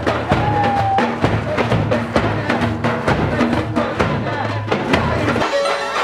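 A large frame drum and hand-held tin cans beaten together in a steady marching rhythm, with voices mixed in; the beating stops abruptly shortly before the end.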